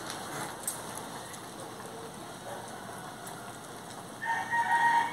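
A rooster crows about four seconds in, one long steady call, over faint background hiss.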